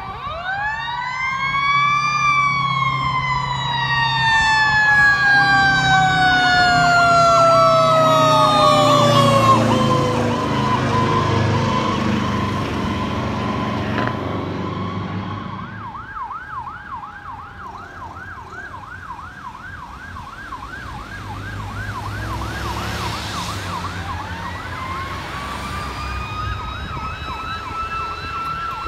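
Seagrave fire truck sirens on a response. A mechanical siren winds up over about two seconds and then coasts slowly down. From about halfway through, an electronic siren warbles rapidly, and near the end a mechanical siren winds up again, with the truck's engine rumbling underneath during the loudest part.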